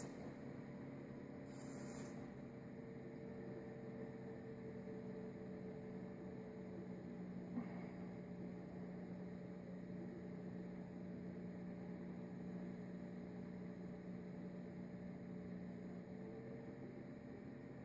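Steady low electrical hum, with a brief hiss about two seconds in and a faint click midway.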